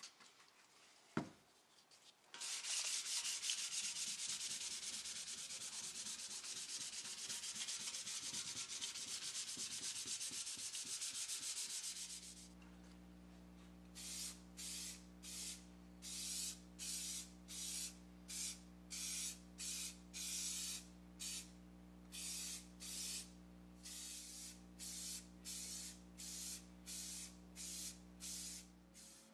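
Sandpaper rubbing over a primed sheet-metal lathe belt guard, a continuous scratchy hiss for about ten seconds. Then a steady electric hum starts, and green paint is sprayed onto the guard in short hissing passes, about one a second.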